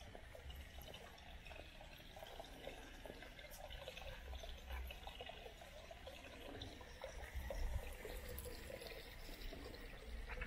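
Faint trickling water, a steady irregular patter.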